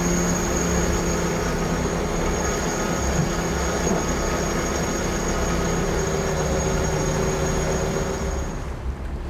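Electric sail winch running steadily under load with a whine, hoisting the mainsail; it stops suddenly about a second before the end.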